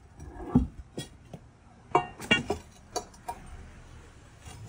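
Steel pry bar clinking and knocking against a large flagstone as it is levered along on wooden rollers: a run of sharp metallic clinks, some ringing briefly, with a heavier low thump about half a second in.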